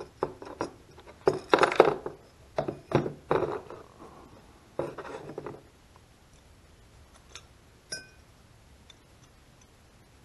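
Small metal parts of a Suzuki Quad Runner 160's Mikuni carburetor clinking and scraping as it is handled and taken apart. It comes in several bursts over the first six seconds, then two faint clicks, the second with a brief ring.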